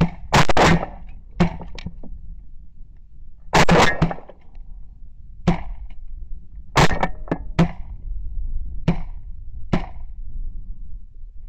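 Shotgun shots from several hunters firing at passing geese, about ten in all. Three very loud blasts come at the start, about three and a half seconds in, and about seven seconds in, and fainter shots from the other guns fall between them and after.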